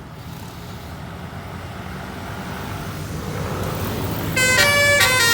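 A bus drawing closer, its engine and road noise growing steadily louder. About four seconds in, its telolet horn, a multi-tone musical air horn, starts to blare a chord of several notes at once.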